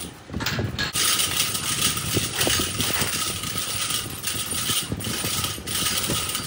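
Manual lathe running: a steady mechanical whirr and rattle with a high hiss and a faint steady whine. The hiss drops out briefly a few times.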